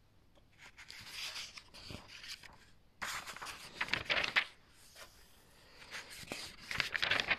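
Paper pages of a workshop manual being turned, rustling and flapping in three bursts, the middle one loudest.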